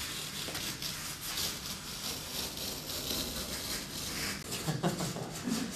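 Quick, light scraping and rubbing of hands and tools on a worktable over a steady room hiss, with a few brief, louder low sounds near the end.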